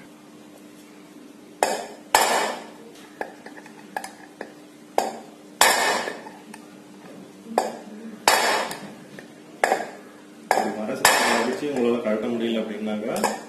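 About a dozen sharp, irregular metallic knocks on a steel threaded rod set through a ceiling fan's top bearing, tapping the bearing out of its cast end cover. Each knock rings briefly.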